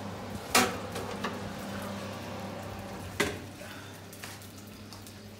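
Metal roasting tray clanking twice against the oven rack as a roast turkey is taken out of the oven, over a steady low hum.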